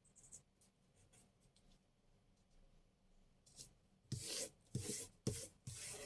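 Hand rubbing over glued paper, pressing down a freshly glued paper hinge joining book pages. Faint paper rustles, then from about four seconds in a run of louder rubbing strokes, roughly two a second.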